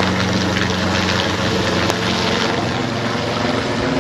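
Search and rescue helicopter's rotors and turbine engines running steadily, a constant loud whooshing noise with a low steady hum.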